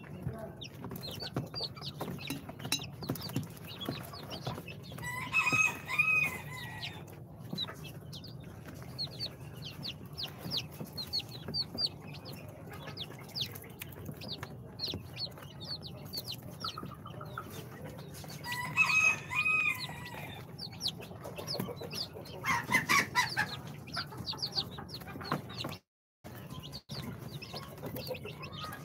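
Day-old chicks of Ispenç, Brahma, bantam Cochin and Sultan breeds peeping constantly: rapid, high, falling cheeps. Twice, about five seconds in and again near twenty seconds, a louder, longer call rises over them. The sound drops out for a moment near the end.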